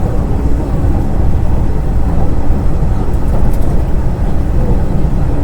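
Train running, a steady low rumble with a faint steady hum above it.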